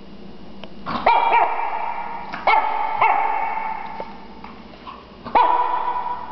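Shih Tzu puppy barking: several short, high-pitched yaps, a cluster from about one to three seconds in and one more near the end.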